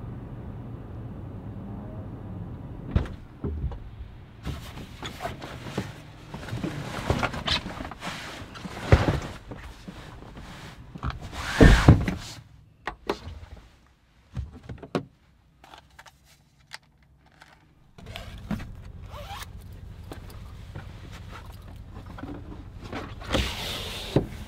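Handling noises inside a pickup truck's cab: a string of knocks, clicks and scrapes, the loudest about halfway through, then a few seconds of near quiet. A steady low hum comes in after that, and near the end the cab's rear sliding window scrapes as it is pushed open.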